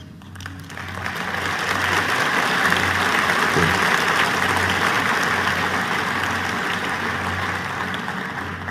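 Audience applauding, swelling up over the first two seconds and slowly dying away near the end.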